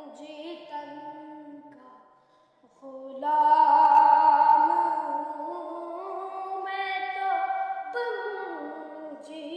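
A solo voice singing an Urdu naat unaccompanied, drawing out long, gliding notes. It pauses briefly about two seconds in, then comes back with a loud held note and carries on the phrase.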